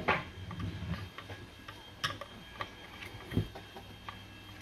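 Scattered light clicks and ticks of a screwdriver working the small screws of a PTZ security camera's cover plate, with a dull knock about three and a half seconds in.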